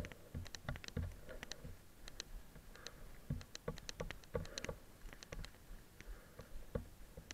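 Mountain bike rolling over a rough dirt trail: a steady stream of irregular sharp clicks and light knocks as the bike rattles over bumps, leaves and sticks.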